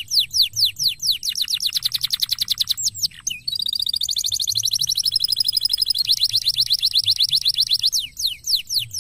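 Canary singing a fast song: a quick run of falling whistled notes, about eight a second. About three and a half seconds in it switches to a very rapid buzzing trill held for over two seconds, then goes back to quick falling notes.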